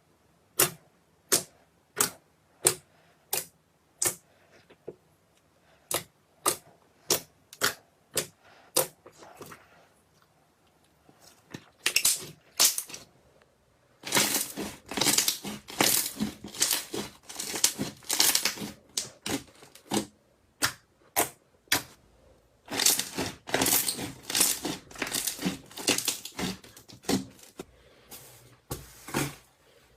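Slime being squeezed and poked by hand: a steady run of sharp clicking pops, about one every two-thirds of a second, then from about halfway through, longer stretches of dense crackling squishes.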